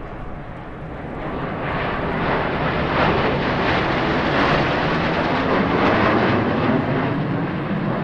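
Jet noise from Blue Angels F/A-18 Hornets, whose twin turbofans make a loud rush that builds over the first few seconds, holds through the middle and eases slightly near the end, as of jets passing.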